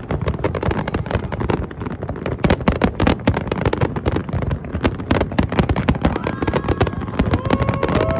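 Fireworks display: a dense, continuous run of bangs and crackling bursts. Several steady high tones join in near the end.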